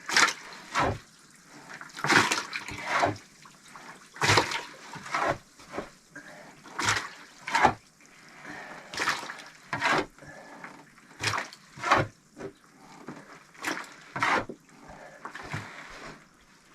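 Clay being dug out, a scraping, chopping stroke or pair of strokes about every one and a half to two seconds.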